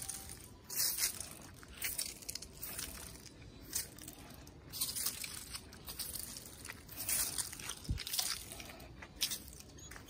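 Irregular crunching, squishing footsteps on wet concrete scattered with fallen leaves, roughly one step a second.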